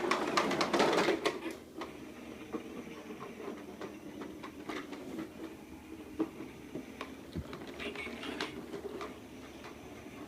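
Lawn mower being pushed and rolled about: a continuous rattling clatter of small clicks, loudest in the first two seconds, with no engine running.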